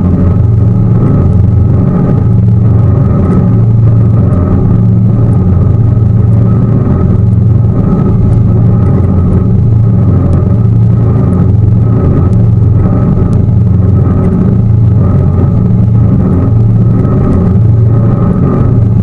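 Tour boat's engine running steadily, a loud, even low drone.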